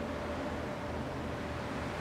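Steady outdoor background noise: a low rumble under an even hiss, with no distinct events.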